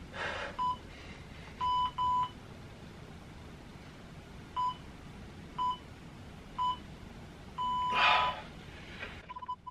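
Interval-timer app beeping a countdown: short beeps about a second apart, each run ending in a longer beep (about two seconds in and again about eight seconds in) that marks the switch between a pose hold and a rest. Two short bursts of hard breathing, the louder one with the second long beep.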